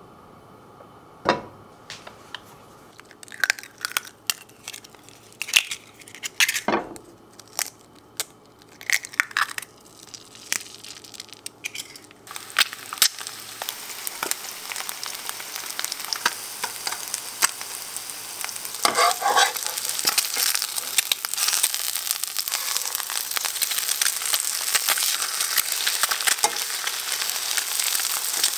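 Frying in oil in a nonstick pan: first scattered sharp clicks and knocks, then from about twelve seconds in a steady sizzle of eggs frying that grows louder.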